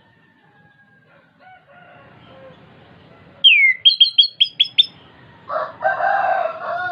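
Chestnut-capped thrush (anis kembang) singing: a falling whistle about halfway through, followed at once by a quick run of about six short, sharp notes. Near the end a lower, harsher call follows.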